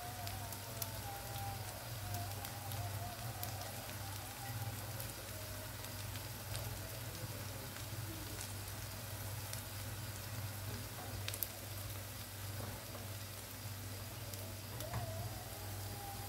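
Sirken greens and eggs frying gently in a pan: a soft, steady sizzle with scattered small pops, over a steady low hum.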